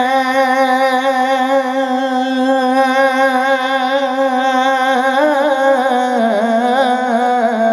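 A man singing one long held note of a Bengali devotional song, which breaks into quick wavering turns about five seconds in and drops lower near the end.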